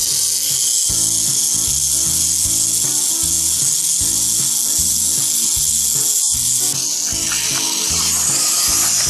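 Small electric motor of a Motor Tomica Skyline GT-R toy car switched on and running with a loud high-pitched whirr, now that its poorly contacting battery terminals have been polished. About seven seconds in, its sound drops lower and grows rougher. Background music with a repeating bass line plays underneath.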